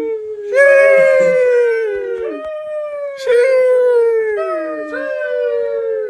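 The "Sheesh" meme sound effect: a voice stretching out "sheeeesh" into long, slightly falling held notes, three times over.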